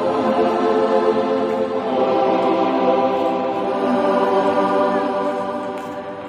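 Choral music: voices singing sustained chords, easing down in loudness near the end.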